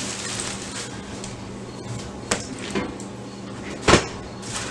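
Plastic grocery bag and aluminium foil rustling and crinkling as a foil-wrapped brisket is handled, with a few light clicks and one sharp knock just before the end, over a faint steady hum.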